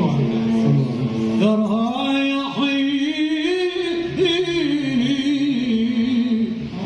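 Male Islamic devotional chant group (inshad) singing unaccompanied: a long melismatic line of held, sliding and ornamented notes, with another voice sustaining a steady drone note beneath it.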